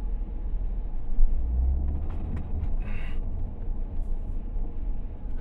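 Low, steady rumble inside a moving car's cabin, engine and road noise, swelling briefly about a second and a half in.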